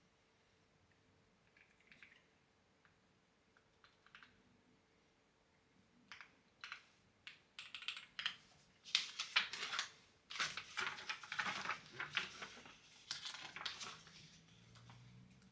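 Clacky computer keyboard being typed on: a few faint isolated clicks, then from about six seconds in a quick run of keystrokes that is loudest and densest in the second half.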